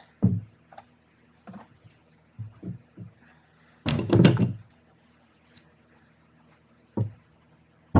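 Scattered knocks and clunks of NP242 transfer case parts being handled and set down, with a louder clatter about four seconds in and a sharp click near the end.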